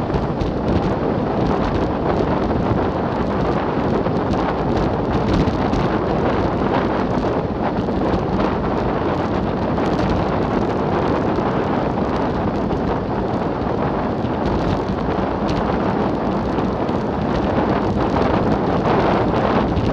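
Wind buffeting the microphone of a Garmin VIRB action camera on a moving bicycle: a steady rushing noise with no breaks.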